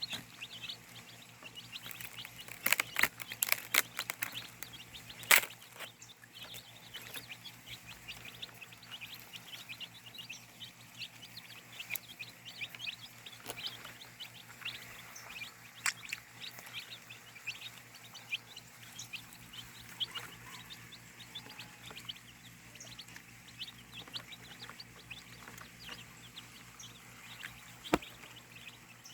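Many short, high bird chirps throughout, with a cluster of sharp knocks about three seconds in and one loud knock a little after five seconds.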